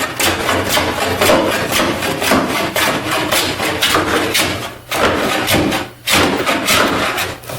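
Hand plane pushed in quick repeated strokes over a glued-up wooden panel, the blade shaving down a high board with a rasping scrape on each pass. The strokes run almost without a break, pausing briefly about five and six seconds in.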